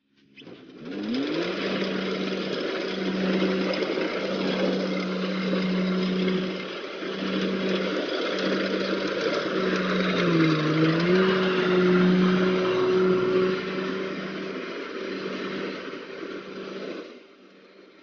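Rice combine harvester's diesel engine running under load as it cuts and threshes the standing rice: a steady engine hum with a dense hiss of the cutting and threshing gear. The engine revs up within the first second, its pitch sags briefly about ten seconds in and recovers, and it quietens near the end.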